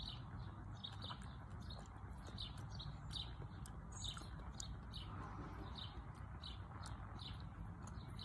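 Small birds chirping: short high calls, two or three a second, over a faint low rumble.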